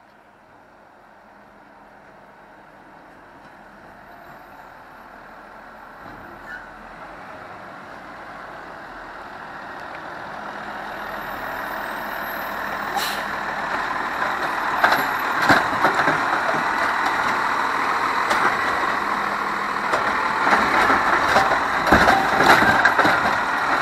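Scorpion automated side-loader garbage truck driving up and approaching, its engine growing steadily louder for about fourteen seconds. It then slows alongside the cart with a series of sharp knocks and clanks, thickest near the end.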